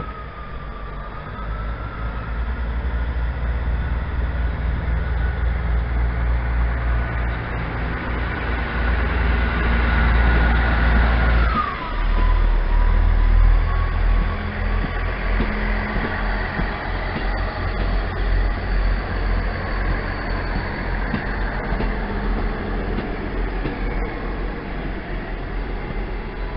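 Class 159 and Class 158 diesel multiple units moving slowly along the platform: a steady low underfloor diesel-engine hum with a whine over it. About eleven and a half seconds in, the whine drops sharply in pitch and the hum dips briefly, then both carry on.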